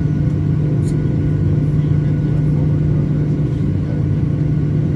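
Boeing 737-900ER's CFM56-7B jet engines running with a steady drone and a strong low hum that does not change.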